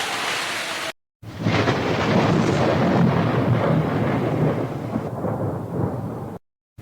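Steady rain. After a brief gap of silence, a long rolling rumble of thunder sounds over the rain and tails off. The sound cuts out again near the end.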